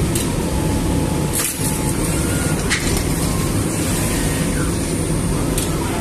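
Steady mechanical noise of bakery oven machinery running, with a faint high whine over it and a few short knocks.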